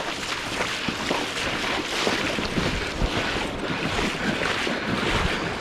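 Flowing river water: a steady rush of moving current.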